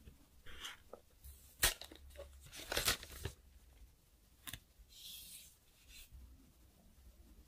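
Smartphone box and phone being handled: paper and cardboard rustles and scrapes with a few sharp taps and clicks, the loudest a little under two seconds in and around three seconds in. About five seconds in, a short tearing rustle of the protective sticker being peeled off the phone's back.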